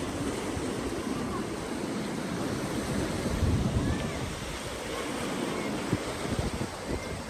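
Ocean surf washing onto a sandy beach, a steady rushing wash, with wind buffeting the microphone in gusts.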